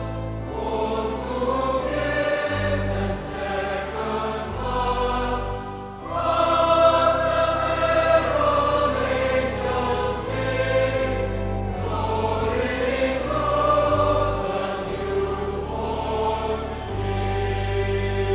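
A choir singing a slow piece in sustained chords over a low, held accompaniment, swelling louder about six seconds in.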